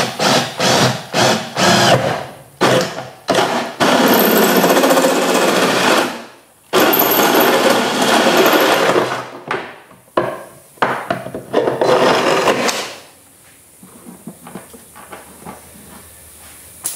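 Cordless drill with a hole saw cutting through the top of a small boat's hull side. It runs in short bursts at first, then in two longer steady runs of a few seconds each, then in short bursts again, and stops about four seconds before the end, leaving only faint handling clatter.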